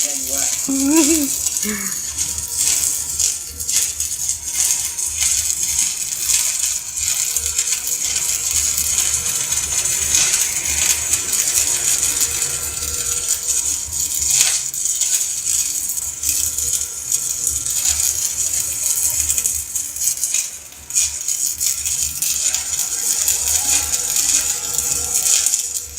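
Stick-welding arc crackling and sputtering steadily as an electrode burns.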